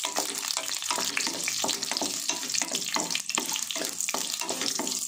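Mustard seeds, chana dal, curry leaves and green chillies sizzling and crackling in hot oil in an aluminium pressure cooker, stirred with a wooden spatula: a South Indian tempering (oggarane) frying.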